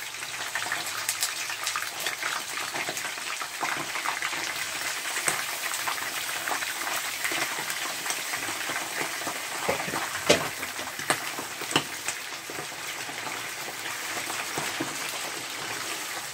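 Raw chicken pieces sizzling and crackling as they fry in hot oil in a non-stick pan, stirred now and then with a wooden spatula. There are a few sharper clicks about ten to twelve seconds in.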